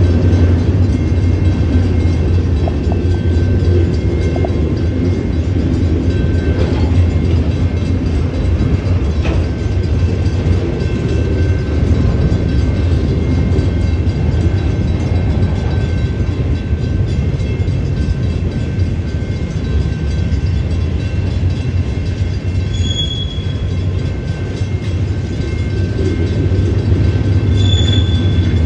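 Union Pacific autorack freight cars rolling past: a continuous low rumble of steel wheels on the rails, with two short high-pitched squeaks near the end.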